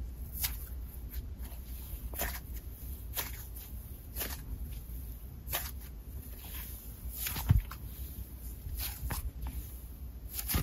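Thick cloud slime, set into a doughy cloud cream, being stretched and squeezed by hand: irregular sizzly crackles as its fibrous strands pull apart, with one louder thump a little past halfway.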